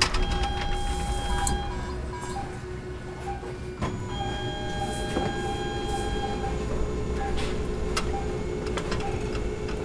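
Hospital-machine ambience: steady electronic tones over a constant low hum, one higher tone held for about a second near the start and again for about two seconds from about four seconds in, with short beeps and a few scattered clicks.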